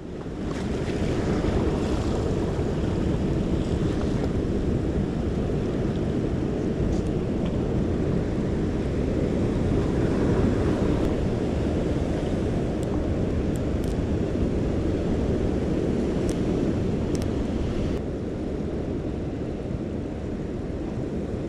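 Steady sea surf washing on a rocky shore, mixed with wind rumbling on the microphone, with a few faint clicks in the middle.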